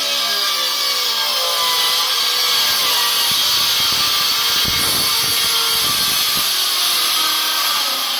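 Cordless circular saw plunge-cutting into a plywood boat panel, running loud and steady under load as the blade cuts through the wood.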